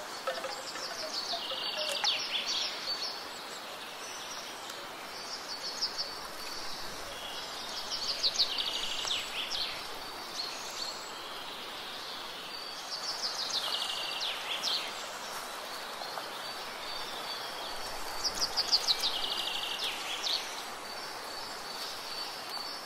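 Outdoor nature ambience: a steady high insect drone, with a rapid descending bird trill repeating several times. The hollow knocking tones of bamboo wind chime tubes die away in the first two seconds.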